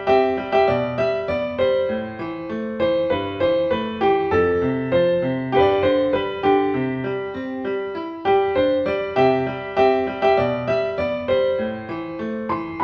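Background piano music: a melody of evenly paced notes, each struck and fading.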